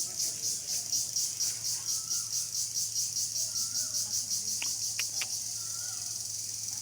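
High-pitched insect shrilling, pulsing about four times a second, then turning to a steady drone about five seconds in. Faint short bird chirps sound underneath.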